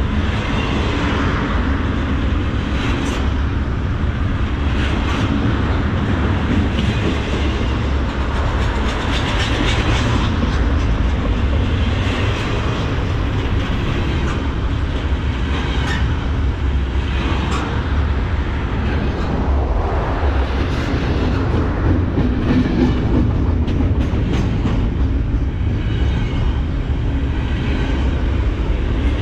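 Freight train cars rolling past at close range: a steady, loud rolling noise of steel wheels on rail, with irregular clicks and clacks as the wheels cross rail joints.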